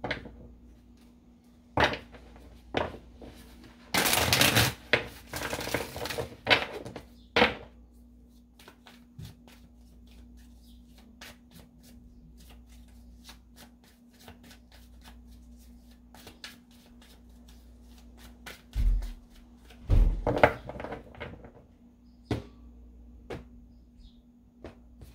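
A deck of tarot cards being shuffled by hand: many light card clicks and flicks, with a loud stretch of dense riffling a few seconds in. A couple of low thumps on the table come about three-quarters of the way through, as cards are laid out.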